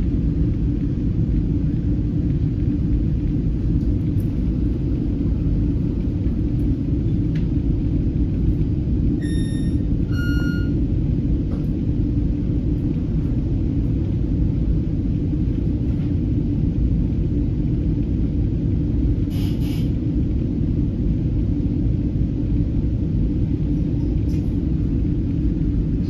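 Steady low rumble inside a commuter rail coach standing at a station. About nine and ten seconds in there are two short tones, one after the other, and a brief hiss comes about three-quarters of the way through.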